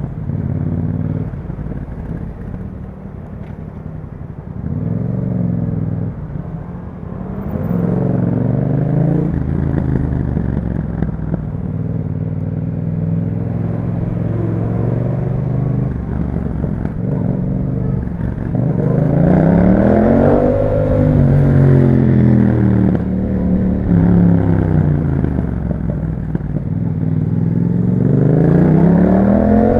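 Yamaha MT-07's parallel-twin engine through an Akrapovic exhaust, accelerating and easing off again and again while riding, its pitch climbing and falling with the throttle. There is a strong rise and fall about two-thirds of the way through and another climb near the end.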